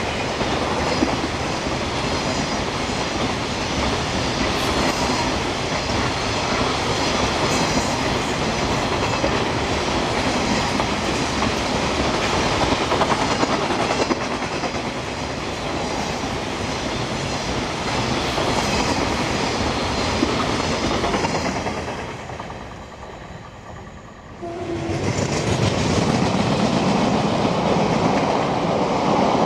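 A long freight train of coal hopper wagons rolling past close at speed, a steady loud rumble with the clatter of wheels over the rail joints. It fades away at about 22 seconds. At about 24 seconds the same loud rumble and clatter starts again suddenly, as an engineering train of flat wagons carrying yellow gantry frames passes.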